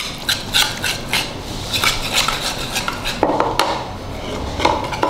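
Metal wire whisk beating homemade cream in a bowl. The wires click and scrape against the bowl in quick, irregular strokes.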